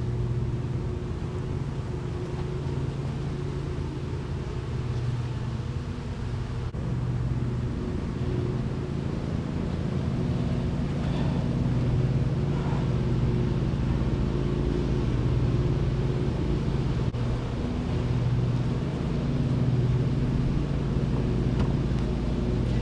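Honeybees buzzing around an opened hive: a dense, steady hum that swells and fades as bees fly close past.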